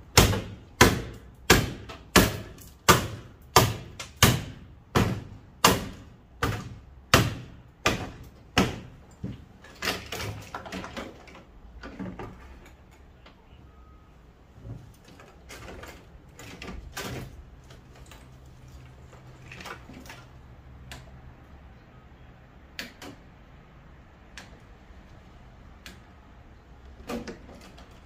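A hammer striking a sheet-metal furnace cabinet in a steady beat of about three blows every two seconds, loudest at first and weakening, for roughly the first twelve seconds. After that come only scattered knocks and clunks.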